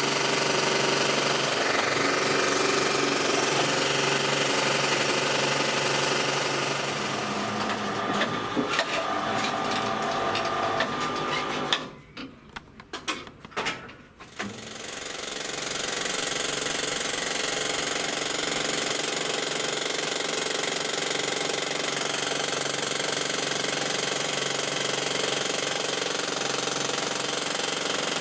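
Electric jackhammer attachment on a homemade power shovel hammering steadily. About twelve seconds in it stops for roughly two seconds, leaving a few knocks, then starts hammering again.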